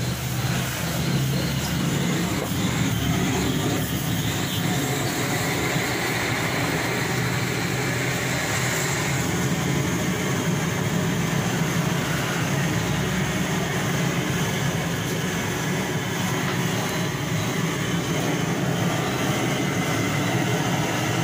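Gas-fired blowtorch burner running with a steady, unbroken roar, its flame singeing the hair off a slaughtered goat carcass.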